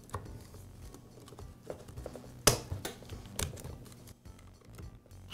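Light plastic clicks and knocks from the green plastic housing of a Metabo paint stripper being slid back over the motor and pressed into place, a few scattered taps with the sharpest one about two and a half seconds in.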